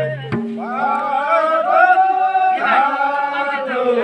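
A group of people singing a Chhantyal traditional ancestral dance song together in a chant-like style, with voices sliding between long held notes.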